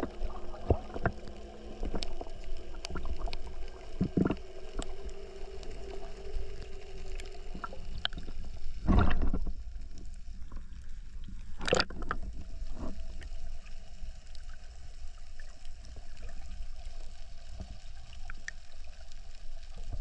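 Underwater ambience heard through a camera held under the sea: a low water rumble with scattered clicks and pops and a faint steady hum over the first several seconds. Two louder bursts of water noise come about nine and twelve seconds in.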